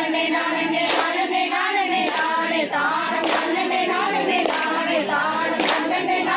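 A group of women singing a Tamil kummi folk song (kummi paattu) in chorus, with a sharp unison hand clap from the dancers roughly once a second, five times, keeping the dance's beat.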